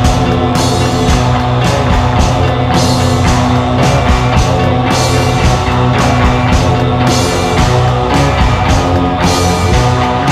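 Rock band music with electric guitar and drum kit, playing loud and steady.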